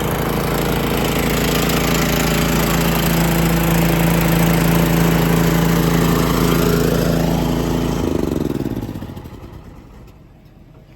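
Truck-mounted air compressor running steadily, then shut off about eight seconds in, its pitch falling as it spins down to a stop.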